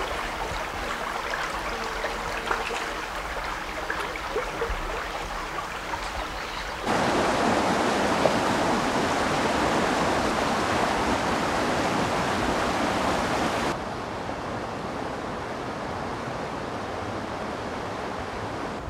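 Running water in a stream flowing over stones. About seven seconds in it cuts to louder rushing white water in a rocky river, then drops back to a quieter flow about fourteen seconds in.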